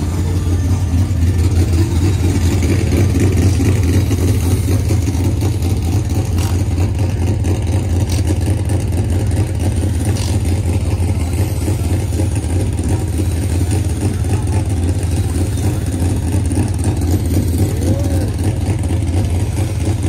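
An engine running with a loud, steady low drone that holds one pitch throughout.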